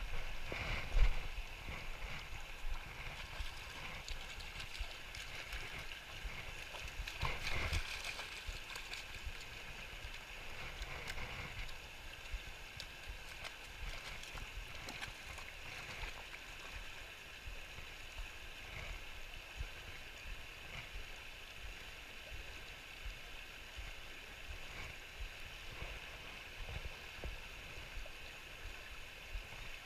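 Shallow river running fast over riffles: a steady rush of moving water, with a sharp bump about a second in and a louder swell of noise around eight seconds in.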